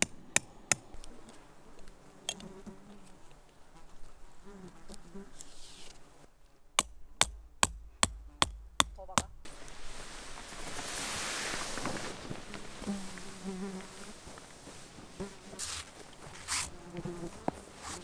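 A hammer driving a tent peg: a few strikes at the very start, then a quick run of about eight strikes, roughly three a second, about seven seconds in. Flies buzz on and off throughout, and the tarp fabric rustles for a moment around eleven seconds in.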